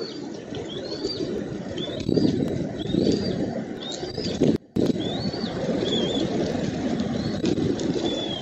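Bald eaglet chirping repeatedly as it is fed, about one short high rising-and-falling peep a second, typical of food begging. Beneath it runs a steady low rustling noise like wind on the microphone.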